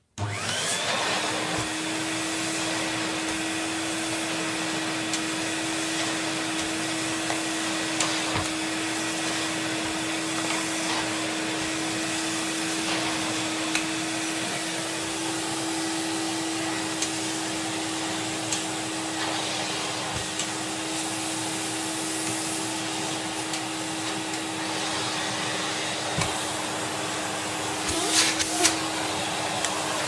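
Hoover Aquamaster S4470 wet-and-dry canister vacuum switched on and running steadily: an even rush of motor and airflow with a constant hum. A few short knocks come near the end.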